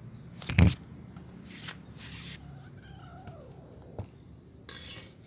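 A cat meowing, one faint drawn-out call falling in pitch about three seconds in. A loud sharp knock about half a second in, with a few shorter clicks and rustles later.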